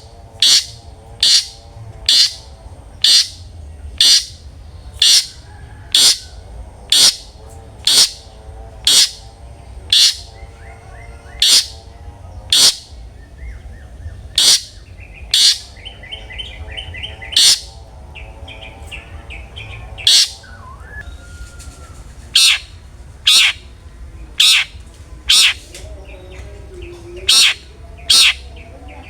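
Long-tailed shrike (cendet) calling in the loud 'ngeplong' style: short, sharp notes repeated about once a second. Softer chattering notes come in between during a few pauses around the middle.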